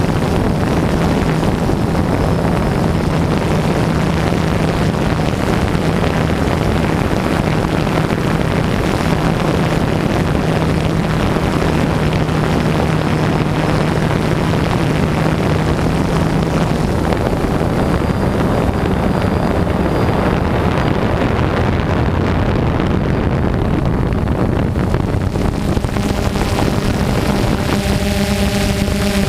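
DJI Phantom 2 quadcopter's four electric motors and propellers running steadily in flight, heard close up from the onboard camera as a continuous buzzing hum, with wind noise on the microphone.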